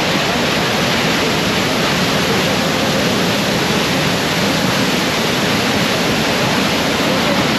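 Steady, loud rushing of a waterfall, Devi's Fall.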